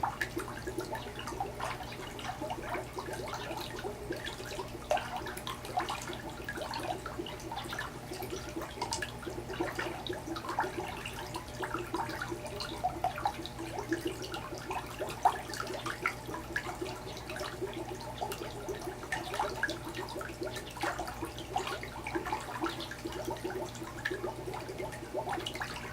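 Water bubbling and trickling steadily, with many small gurgles and splashes, over a constant low hum.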